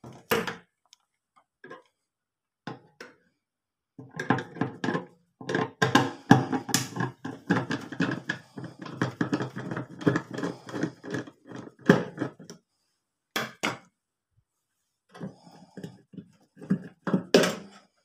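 Screwdriver scraping, clicking and knocking against a microwave oven's sheet-metal casing at the turntable motor mount, a dense rattling run of small metal knocks in the middle, with scattered clicks and handling knocks near the end.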